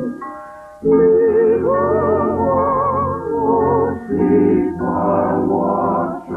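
Woman singing in an operatic soprano voice with wide vibrato over orchestral accompaniment; after a brief drop at the start, the singing picks up again just under a second in.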